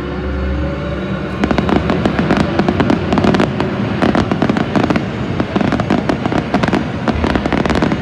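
Fireworks going off in a dense run of crackles and bangs, beginning about a second and a half in, over a held musical chord at the start.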